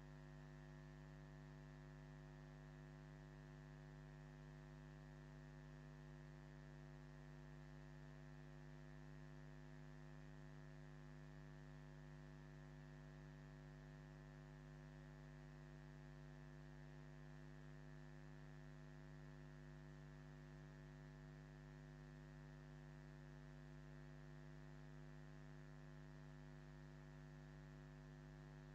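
Faint, steady electrical mains hum: a buzz of many even tones that does not change, with no other sound over it.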